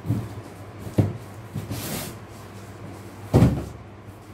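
Large cardboard box being handled as the lamp parts are pulled out of it: three dull thumps, the loudest about three and a half seconds in, with a short rustling scrape of cardboard in between.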